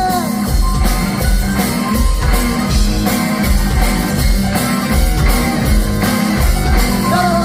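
Live rock band playing an instrumental passage: guitar, bass and drum kit with a steady beat.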